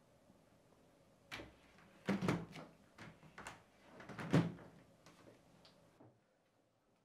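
Doors of a small plastic wardrobe cabinet being handled and shut: a series of light plastic clacks and knocks, with two busier clusters about two and four seconds in, the second the loudest.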